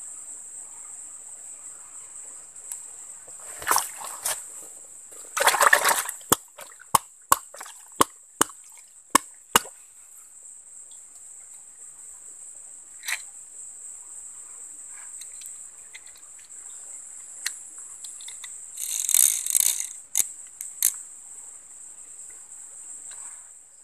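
A steady high insect chorus, like crickets, with a few bursts of splashing and rustling in a shallow water-filled hole. A run of about ten sharp clicks, roughly three a second, comes near the first third.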